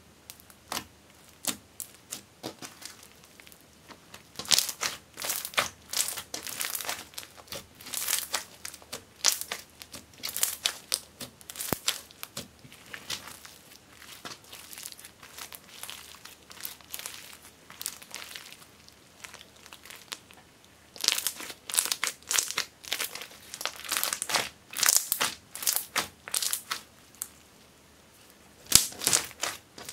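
Thick glittery slime studded with small beads being squeezed, kneaded and stretched by hand, giving rapid runs of short crackles and pops. The crackling comes in two busy stretches with a sparser spell between them, and one more short burst near the end.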